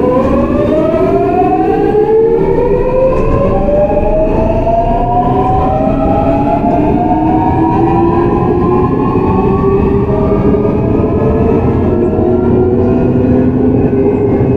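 Seoul Metro 4000 series train's GEC Alsthom GTO-VVVF inverter whining as the train accelerates: several tones glide upward as speed builds, with more joining later, over the rumble of the train running on the rails.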